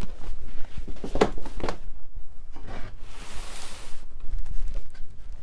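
Wooden chair frame being handled and turned upside down on a workbench: a few wooden knocks, then a rubbing noise about a second long as it is set down on a padded mat.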